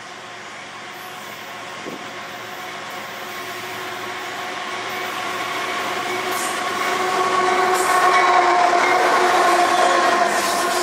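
Freight train with two diesel locomotives approaching and passing close, growing steadily louder, followed by the cars rolling by on the rails. Steady high-pitched tones run over the rumble, loudest as the locomotives go past about eight seconds in.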